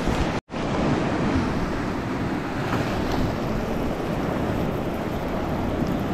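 Sea surf washing onto a sandy beach, a steady rushing noise mixed with wind buffeting the microphone. The sound cuts out completely for a moment about half a second in.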